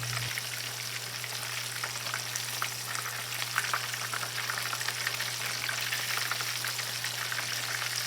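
Flour-coated chicken pieces frying in hot canola oil in a pan: a steady sizzle with a dense crackle of small pops.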